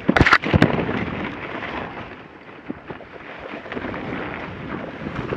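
Wind buffeting the microphone over the rushing noise of a dog team and its rig moving down the trail, with a few sharp knocks near the start.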